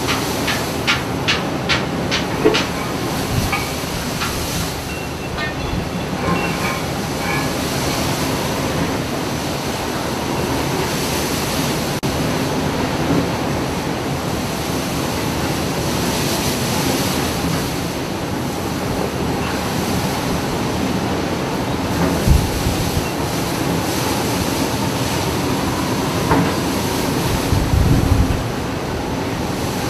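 Steady rumble and rushing noise of a ship under way on the water, with a run of sharp clicks in the first few seconds and a few low thumps near the end.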